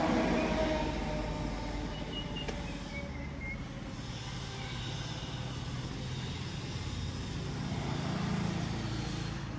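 A motor vehicle's engine running steadily with a low rumble that swells slightly near the end.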